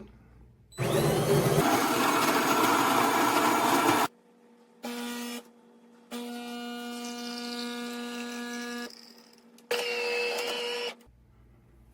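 De'Longhi Magnifica Start automatic espresso machine making an espresso. Its built-in grinder runs loudly for about three seconds, then the pump hums more quietly in separate runs: a brief one, a longer one of about three seconds, and a short last one near the end.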